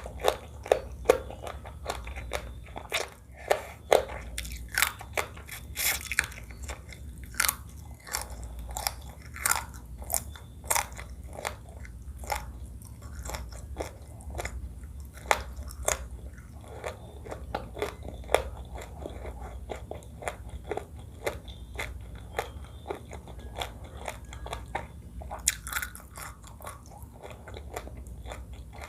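Close-miked chewing and biting of seafood crab papaya salad, with many sharp, irregular crunches.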